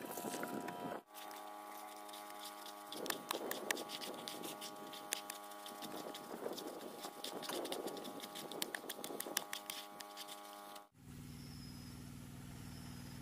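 Thick wet mortar of sand, cement and yellow clay being kneaded and scraped by hand in a plastic basin: irregular squelching swells with small clicks, over a steady hum. Near the end the sound cuts to a quieter, steadier hum.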